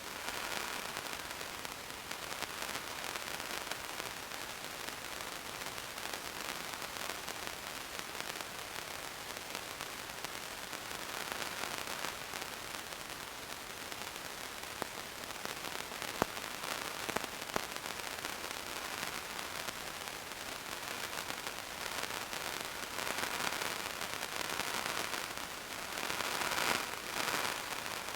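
Steady static-like hiss with a faint crackle, swelling slightly now and then, and a few sharp clicks about two-thirds of the way through.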